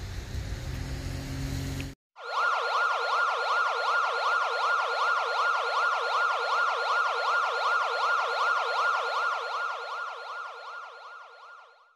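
Low outdoor background noise for about two seconds, then a police siren starts abruptly, sweeping rapidly up and down about four times a second in a yelp. It fades out near the end. The siren is clean, with no road or engine noise beneath it, like an added sound effect.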